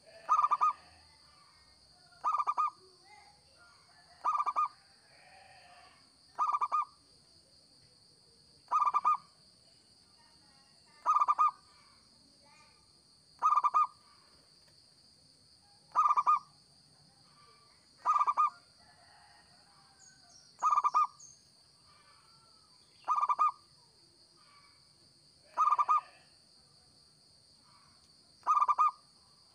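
Zebra dove (perkutut) cooing: a short call repeated at a steady pace, about once every two seconds, thirteen times.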